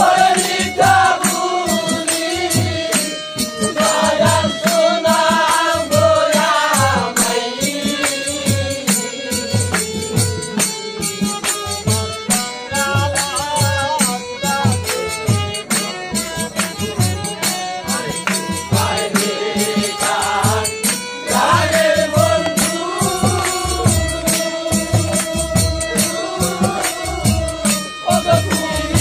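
Live Bengali bicched folk song: a male voice sings long, wavering lines over a steady low drum beat and metallic jingling of hand percussion.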